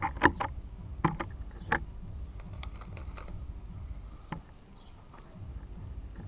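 Sharp clicks and knocks from the Daystate Red Wolf PCP air rifle being handled at aim, the loudest about a quarter second in and several more over the next few seconds, over a low steady rumble.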